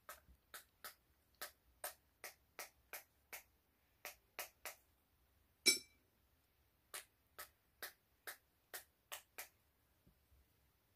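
Light, sharp taps of a wet paintbrush struck against a pen barrel to spatter water droplets onto a watercolour painting: about twenty clicks at two to three a second. One louder tap near the middle rings briefly.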